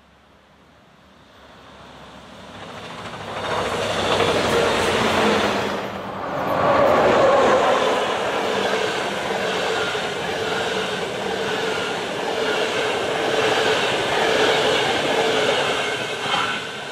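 A Czech Railways (ČD) electric locomotive hauling passenger coaches passes close by. Its approach swells over the first few seconds into a loud, steady rush of wheels on rail with a held humming tone as the coaches roll past. There is one sharp knock near the end.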